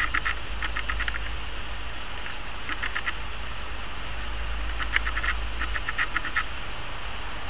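An animal's short rattling calls, each a quick run of clicks lasting under half a second, repeated several times at uneven gaps over a low steady rumble.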